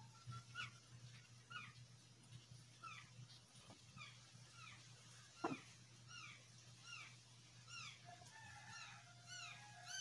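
Faint, short, high chirping calls from a small animal, repeating about once or twice a second and coming faster near the end, over a low steady hum, with a single light knock about halfway.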